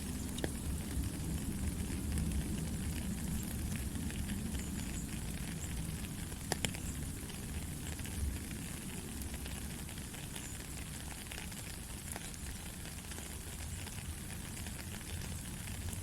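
Steady rain falling, with a low rumble underneath and scattered sharp drip ticks, one clearer about six and a half seconds in.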